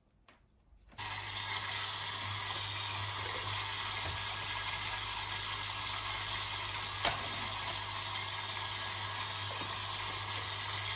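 Small submersible coolant pump for a water-cooled spindle switching on about a second in and running with a steady hum, water rushing and splashing as it circulates through the cooling tubing. A single click partway through.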